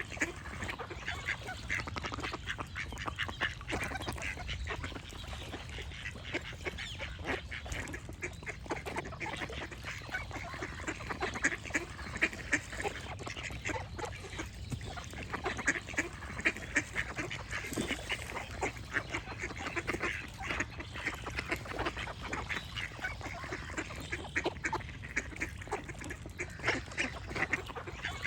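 A flock of ducks quacking: many short calls overlapping in a dense, continuous chorus, over a low steady rumble.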